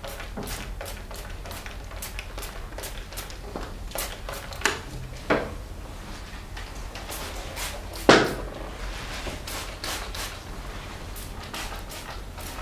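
Hand trigger spray bottle squirting disinfectant solution in quick short sprays, about two to three a second, onto a PPE coverall. A few louder knocks break in around the middle, the loudest about eight seconds in.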